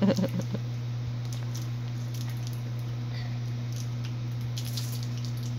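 A steady low hum, with faint rustling and small clicks as a child handles a plastic candy wrapper.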